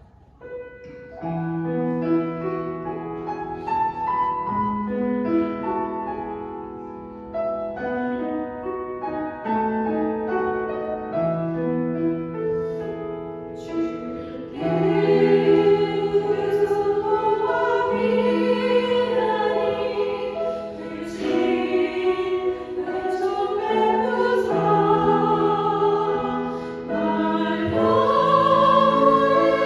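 A church choir singing a hymn with piano accompaniment. The piano plays the introduction alone, and the voices come in about halfway through, making the music louder.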